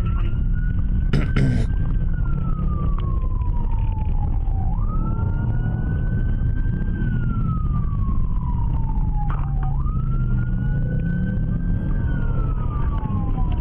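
Police car siren in wail mode, picked up by the pursuing cruiser's dashcam. Each cycle rises quickly and then falls slowly over about five seconds, over a steady low rumble. A short burst of noise comes about a second in.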